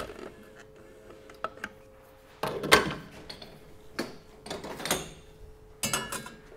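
Clunks and ceramic clatter of espresso-machine handling: a portafilter being locked into the group head of a La Marzocco commercial espresso machine and a coffee cup being taken off the top of the machine and set on the drip tray. Several separate knocks a second or so apart, the loudest about three seconds in, over a faint steady hum.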